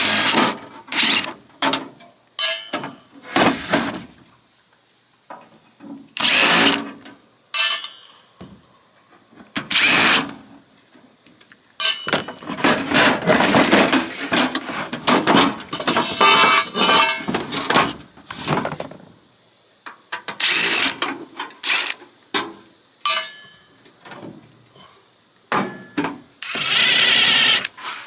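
Cordless power drill/driver running in repeated short bursts, with a busier stretch of quick runs in the middle and a longer run near the end, as it backs screws out of the oscilloscope's case.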